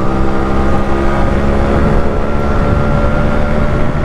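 Yamaha RX-100's two-stroke single-cylinder engine running at steady revs through an owner-built exhaust, one unbroken, even note.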